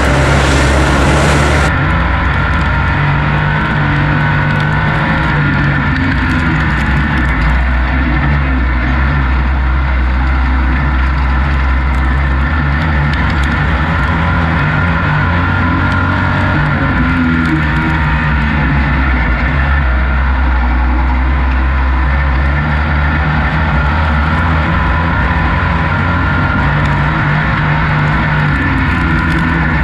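Dirt-track race vehicle's engine running steadily at racing speed, heard onboard, with only small rises and dips in pitch as it goes around the oval.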